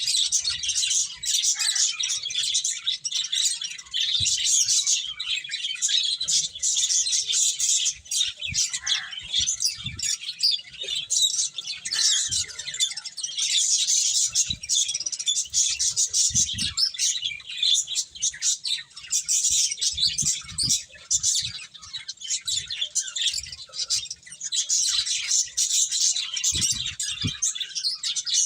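Pet finches chirping continuously, many short high calls overlapping in a dense chatter, with a few faint low knocks now and then.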